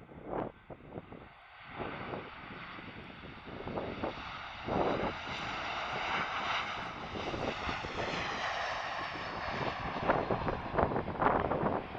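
Boeing 737-800 airliner passing close by on its landing approach, its CFM56 jet engines swelling to a peak in the middle and then easing off, with gusts of wind buffeting the microphone near the end.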